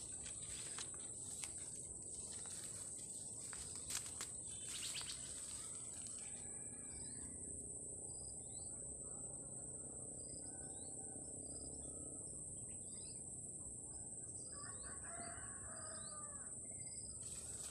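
Rural outdoor ambience: a steady high insect drone, with many short bird chirps and a rooster crowing once, about a second and a half long, near the end. A few faint clicks in the first seconds.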